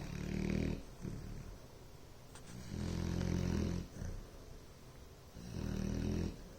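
Bloodhound snoring in its sleep: three low snores, each about a second long, coming roughly every three seconds with quieter breathing in between.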